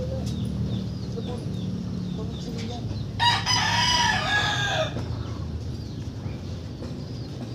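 A rooster crowing once, about three seconds in: a single loud call with an arching pitch, lasting under two seconds, over a steady low rumble.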